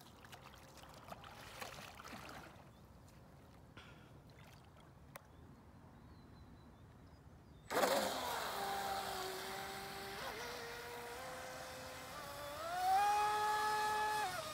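Homemade Wild Thing RC speedboat's Boat Rocket 3660 2600kv brushless motor and propeller starting suddenly about eight seconds in, after a faint lull. It sends out a whine whose pitch steps and glides with the throttle, then rises and grows louder near the end as the boat speeds away across the water.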